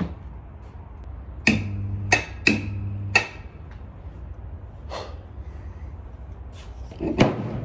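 Electric gear motor of a plastic shredder switched on twice in quick succession, each time giving a steady low hum for under a second that starts and stops with a click; the owner believes the motor is already damaged. A handling knock near the end.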